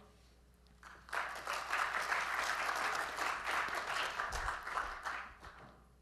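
Audience applauding, starting about a second in and dying away near the end.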